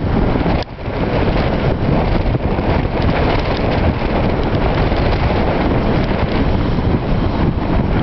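Strong wind buffeting the microphone, a loud continuous rumble over the noise of rough winter surf breaking on a beach. The wind noise briefly drops away just under a second in.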